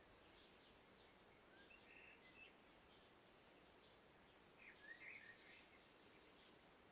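Faint birdsong in a forest: several birds chirping and trilling, with slightly louder calls about two seconds in and again about five seconds in, over a steady low hiss.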